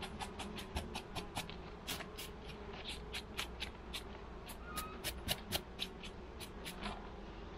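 Bee brush bristles sweeping bees off a honeycomb frame: a quick, irregular run of short brushing strokes, about four a second, over a faint steady hum of bees.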